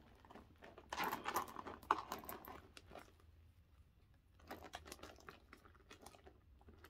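Handling noise from bags and packaging: rustling and crinkling with light clicks and taps, in two bursts with a quieter gap between them.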